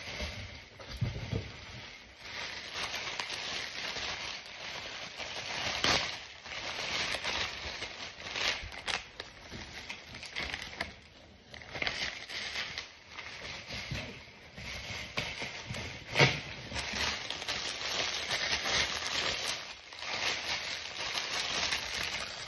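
Clear plastic packaging bags rustling and crinkling as they are handled and pulled apart, with sharp crackles now and then, the loudest about 16 seconds in.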